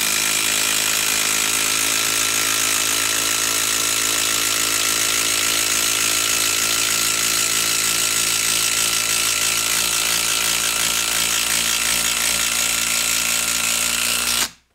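Hyper Tough cordless impact driver hammering a 10-inch TimberLOK screw into a log, running steadily under load and stopping suddenly near the end as the screw seats.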